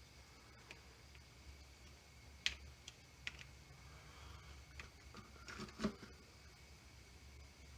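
Scattered light clicks and knocks of small metal parts and tools being handled, about eight irregular taps, the sharpest about two and a half seconds in and a double knock near six seconds, over a faint steady hum.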